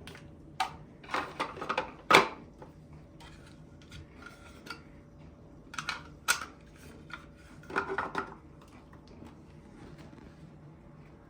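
Hard objects being handled: scattered clicks, clinks and short rattles in three bursts, the loudest a sharp knock about two seconds in.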